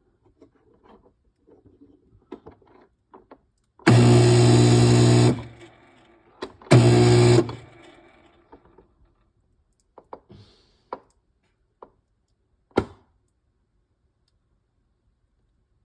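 Whirlpool refrigerator's ice dispenser running twice, about a second and a half and then under a second, a motor hum with ice grinding and rattling out: set to cubed, it still gives crushed ice because the white cube part behind the solenoid isn't lifting up. A few light clicks and one sharp knock follow.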